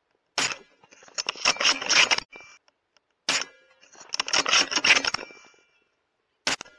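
Three suppressed shots from a custom bolt-action .308 Winchester rifle, about three seconds apart, each followed by the bolt being worked hard with a quick run of metallic clicks and scrapes.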